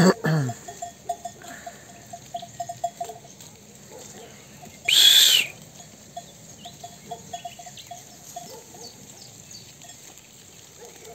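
Flock of sheep browsing leaves, with a bell clinking in quick runs among them. There is a short falling call right at the start and one loud short sound about five seconds in.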